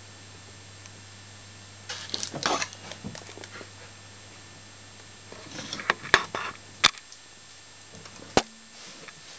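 Rustling handling noise and three sharp clicks, the last the loudest, as the radial arm saw's parts are handled, over a low steady hum.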